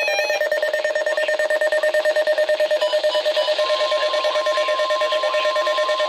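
Weather alert radios sounding for a tornado watch: a rapidly pulsing electronic alarm beep. About three and a half seconds in, the steady, higher NOAA Weather Radio warning alarm tone (1050 Hz) joins it.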